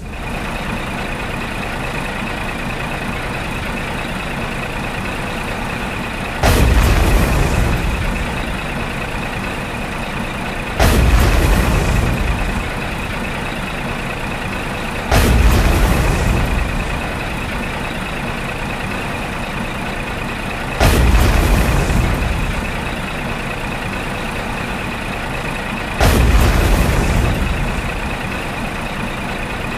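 Heavy-truck engine sound running steadily with a thin high whine, broken by a sudden louder surge about every five seconds that fades over a second or two.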